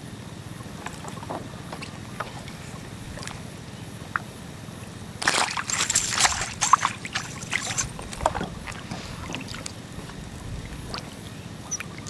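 Water sloshing and splashing, with a louder flurry of splashes about five seconds in that lasts under two seconds, over a steady low background.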